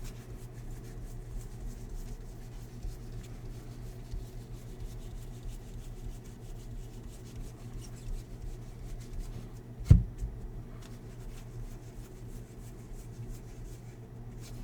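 Baseball trading cards handled and slid against one another, with soft rubbing and light flicking, over a steady low hum. A single sharp knock about ten seconds in.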